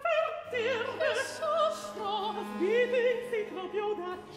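Baroque opera recitative: a high male voice sings Italian with wide vibrato over held low continuo notes.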